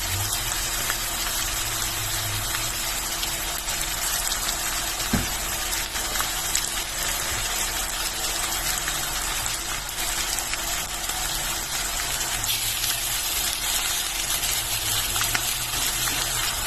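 Chicken breast sizzling steadily in hot oil in a frying pan, with a single light knock about five seconds in.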